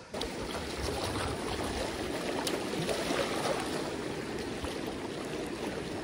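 River water rushing and lapping over shoreline rocks, a steady wash that begins suddenly a moment in.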